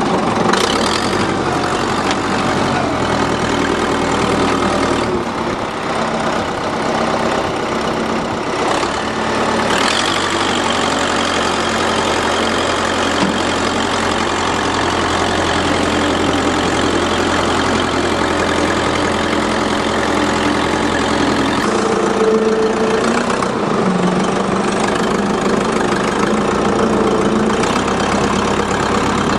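Front-end loader engine running steadily as the machine drives, heard close up from the operator's seat. Its pitch shifts about ten seconds in and again a little past twenty seconds, with a few clanks in the first ten seconds.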